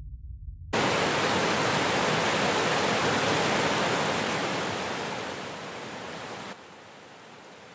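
A loud, steady rushing hiss that starts suddenly about a second in, eases off slightly, then cuts abruptly to a faint hiss near the end.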